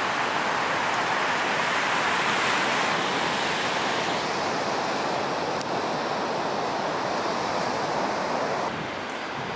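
Ocean surf: a steady, even wash of breaking waves. The sound shifts slightly about four seconds in and drops a little in level near the end.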